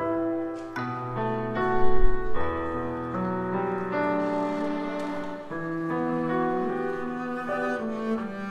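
Pipa and double bass duet: the double bass is bowed in long held notes that move from pitch to pitch, with a very low note about two seconds in, and plucked pipa notes are played above it.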